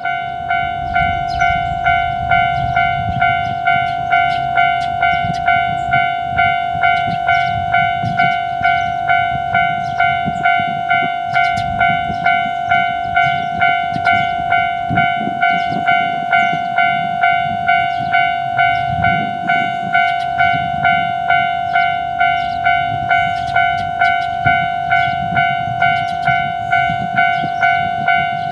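Japanese level crossing warning bell ringing its repeated electronic "kan-kan" strike, about two strikes a second, steady throughout, over a low rumble.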